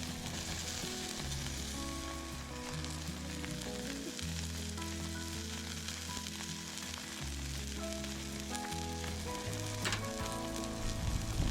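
Food sizzling as it fries, a steady hiss, with one sharp click about ten seconds in.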